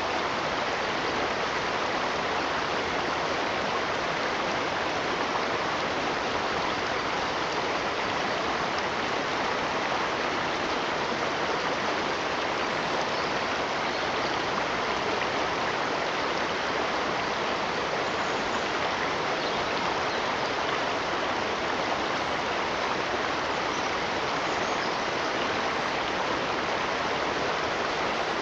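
Running water in a stream, a steady even rush with no breaks.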